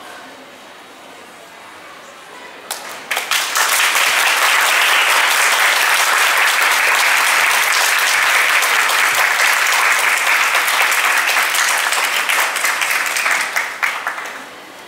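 Audience applauding: a few scattered claps about three seconds in quickly swell into loud, steady applause, which dies away just before the end.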